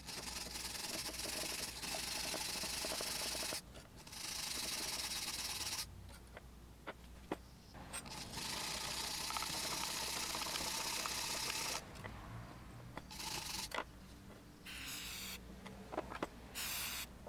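Wire brush scrubbing rust and brake dust off the pad abutments of a brake caliper bracket, in several long bursts of harsh scraping with short pauses and a few light clicks between them.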